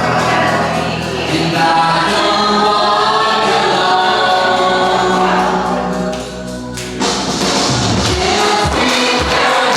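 A choir singing a Christian song over backing music, with a regular beat of low thumps coming in about seven seconds in.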